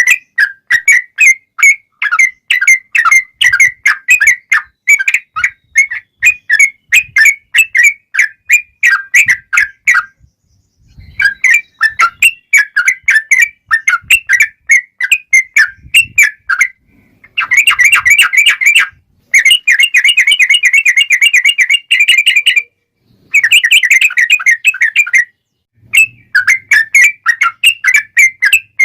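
Yellow-vented bulbul (trucukan) singing a long song: rapid strings of short, clear chattering notes, broken by brief pauses, with two bursts of a much faster, denser trill a little past the middle.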